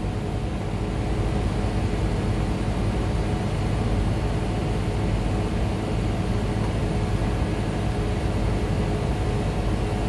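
Steady hum and rushing noise of running air-conditioning plant, with a few constant low tones, as the VRF system is started by shorting the RUN pin on its control board.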